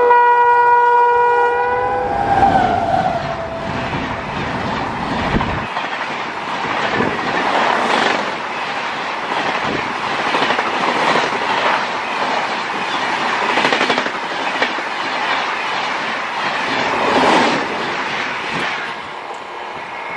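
WAP-7 electric locomotive horn sounding as the train approaches, its pitch sliding down as the locomotive passes about two seconds in. Then the coaches' wheels clatter over the rail joints at speed, a dense run of clicks, until the sound cuts off near the end.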